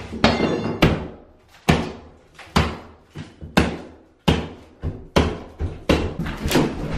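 Demolition work: a run of about ten heavy knocks and bangs, roughly one a second and unevenly spaced, as shelving and wall material are struck and pulled apart.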